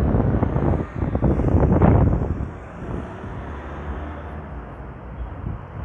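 Road traffic driving past on a brick-paved street, with wind buffeting the microphone loudly for the first two seconds, then a steadier, quieter traffic hum as a van passes close by.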